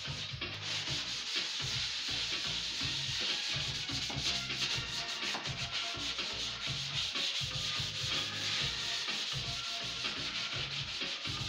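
Sandpaper rubbed by hand over the bare wood of a corner shelf unit: a steady rasping scrape made up of quick back-and-forth strokes.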